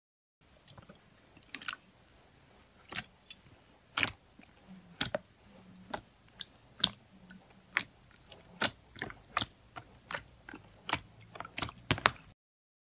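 Multicoloured slime being kneaded and squeezed by hand, giving irregular sharp clicks and pops that come faster near the end.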